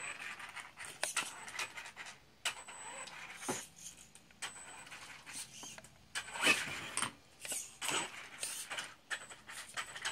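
Radio-controlled monster truck driving on carpet: its motor whirs in irregular short bursts of throttle, mixed with knocks and scuffs as the truck bounces and lands, the loudest burst about six and a half seconds in.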